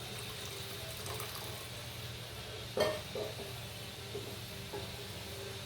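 Tamarind water being poured into a kadai of frying masala paste, with a sharp clank against the pan about three seconds in and a few lighter clinks.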